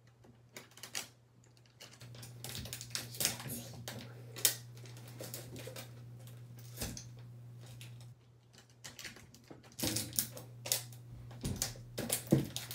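Irregular clicking and tapping of things being handled, in quick runs, with a steady low hum for several seconds in the middle.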